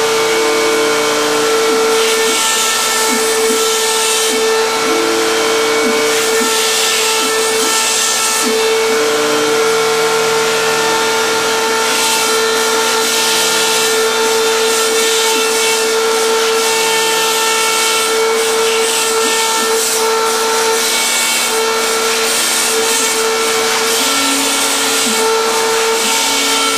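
PhlatPrinter MKII CNC foam cutter running a cut: the cutting spindle gives a steady whine over a hiss, while the stepper motors hum at pitches that keep changing as the foam sheet is fed back and forth.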